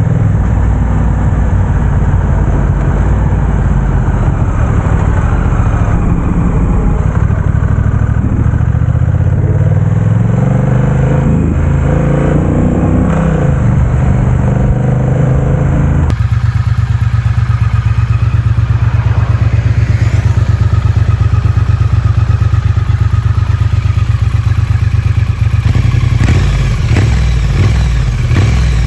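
Parallel-twin motorcycle engine with a 270-degree crank, idling and then revved, its pitch rising and falling about ten seconds in. After a sudden cut about sixteen seconds in, a twin idles steadily, with a few blips of throttle near the end.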